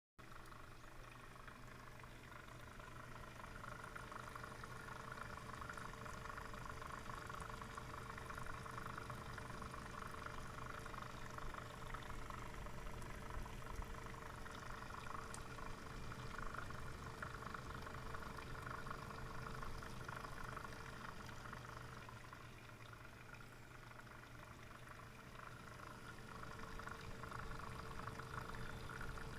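Swiftech H220 liquid CPU cooler's pump running with a steady hum and a constant whine, over a fluctuating, liquid-sounding churn. This is the unusual pump noise the owner is asking about.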